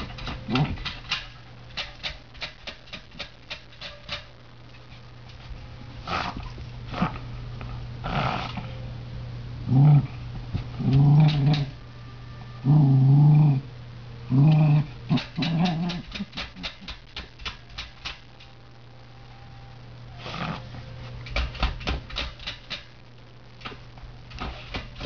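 Terrier scratching with its claws at a metal floor heating register, in quick runs of scratches, with several short growls in the middle. It is digging at the vent after something it has heard or smelled in the heating ducts.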